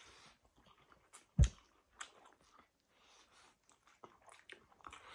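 People chewing and biting food eaten by hand, heard up close as a scatter of short clicks, with one loud thump about a second and a half in.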